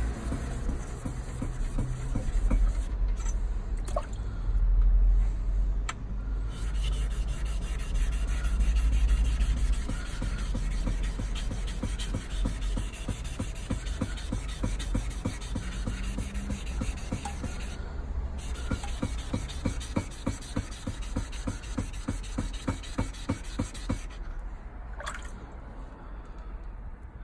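Plane blade scrubbed back and forth on a steel lapping plate with wet abrasive grit, a fast gritty rubbing of several strokes a second.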